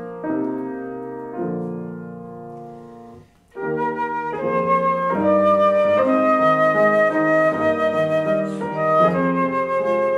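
Grand piano playing alone for about three seconds, its chords fading into a brief pause. A concert flute then comes in, playing the song's descant line over the piano accompaniment.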